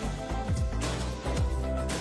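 Background music with a steady beat: a deep bass line under regular kick drum strokes and light percussion.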